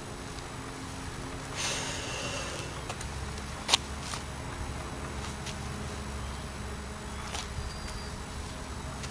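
Steady low background noise with a short hiss about one and a half seconds in and a single sharp click a little later, plus a few faint ticks.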